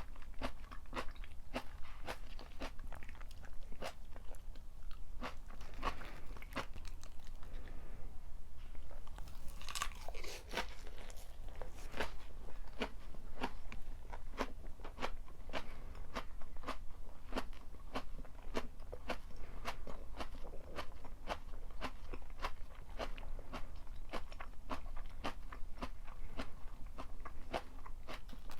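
Close-up chewing of crunchy stir-fried napa cabbage and pork: a steady run of crisp crunches, about two a second, thickest about a third of the way through.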